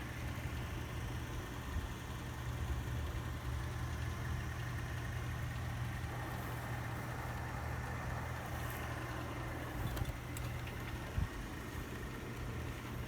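Vosterman's Ventilation Multifan 56-inch industrial ceiling fan running steadily: a constant low motor hum under an even rush of air from its three curved-tip blades.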